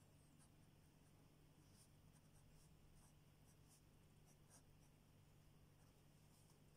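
Faint scratching of a ballpoint pen writing on paper, in short irregular strokes, over a low steady hum.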